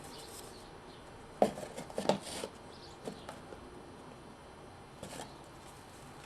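A handful of light, scattered knocks and taps of a crown molding corner block and a sample piece of molding being fitted and checked for flush in the wall-ceiling corner.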